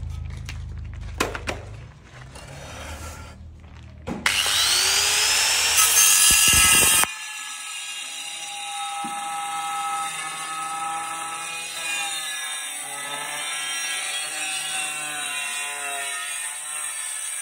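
Angle grinder with a diamond blade cutting ceramic tile. About four seconds in it spins up with a rising whine and cuts loudly for about three seconds, then runs on more quietly with a wavering whine.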